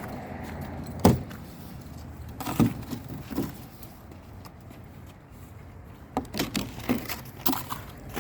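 A handful of sharp knocks and thumps over a low steady hum: the loudest about a second in, two more a little later, and a quick run of them near the end.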